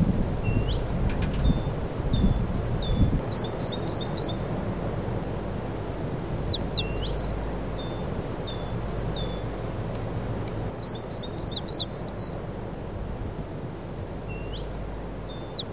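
A songbird singing in short phrases of quick, high whistled notes, many sliding downward, with four bursts of song a few seconds apart.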